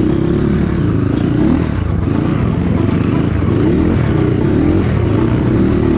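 Motorcycle engine running while riding, its pitch rising and falling again and again with the throttle over a constant low rumble.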